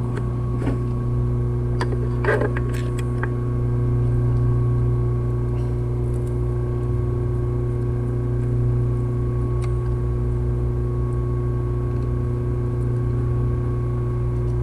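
Steady electrical hum, with a few light clicks and taps of small metal parts being handled in the first three seconds.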